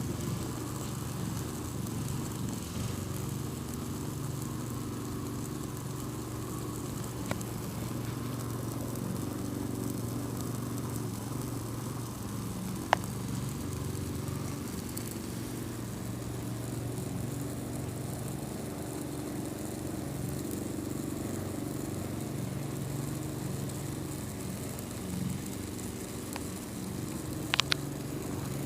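A steady low hum, made of several held tones, with three isolated sharp clicks or pops, the last a quick double near the end.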